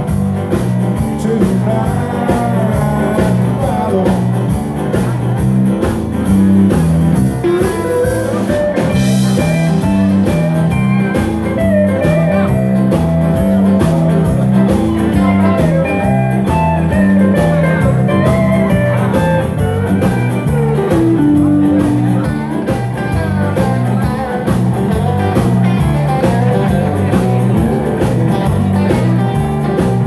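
Live band playing a rock-and-roll dance number: an electric guitar lead with bent notes over a steady, bouncing bass line.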